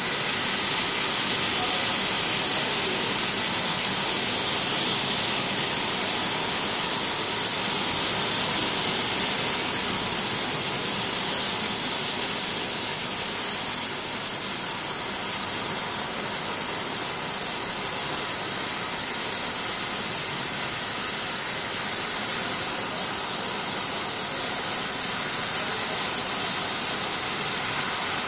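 Laser cutting machine at work cutting a brake disc: a steady, unbroken bright hiss.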